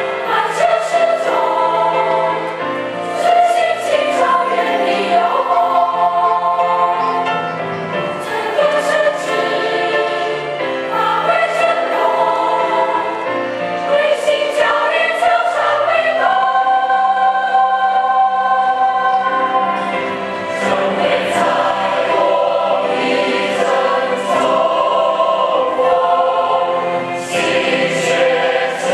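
Large mixed choir singing a Buddhist choral song, sustained held chords moving from phrase to phrase.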